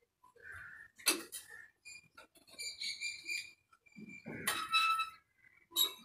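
A vegetable chopper being scrubbed with its small cleaning brush while it is washed: scattered squeaks and clicks from the bristles and plastic, with brief louder clatters about a second in and near the end.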